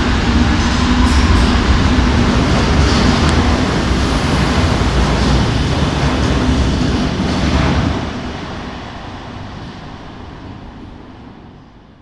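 A Madrid Metro Serie 2000 electric train runs past along the platform track, a loud rumble of wheels on rail with a steady motor hum. About eight seconds in, the sound starts to fade as the train pulls away into the tunnel, and it is faint by the end.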